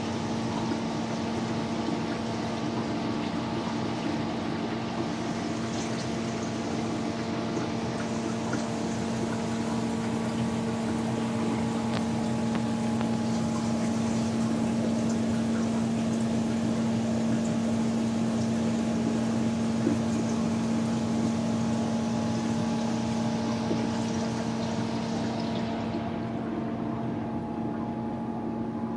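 Large aquarium's pump and filtration running: a steady electric hum under a continuous rush of pouring, trickling water. The water hiss thins out near the end.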